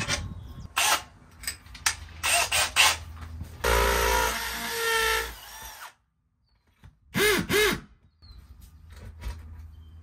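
Cordless drill boring a small pilot hole through a stucco wall to find the wall stud. It runs in short trigger bursts, with one longer run of about two seconds in the middle, then two quick spins that rise and fall in pitch near the end.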